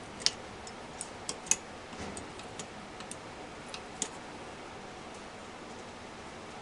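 Irregular sharp metallic clicks and taps, about nine in the first four seconds, from a hand wrench working on the bolts of a 1978 Foote three-speed transmission during teardown.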